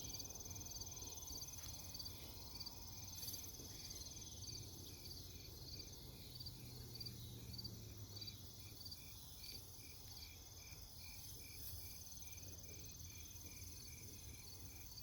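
Night insect chorus: evenly repeating chirps, about two a second, over a steady high-pitched trill that stops about six seconds in.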